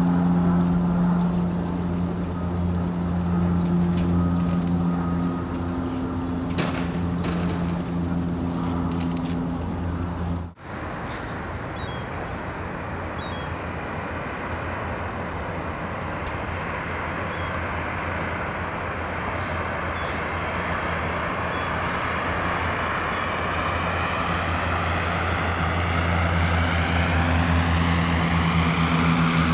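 De Havilland Canada DHC-6 Twin Otter floatplane's twin PT6A turboprop engines and propellers running in flight, with a steady low propeller hum. The sound breaks off for an instant about a third of the way in and resumes as a rougher rush. It then grows louder as the plane comes in low over the water to land, the propeller hum returning strongly near the end.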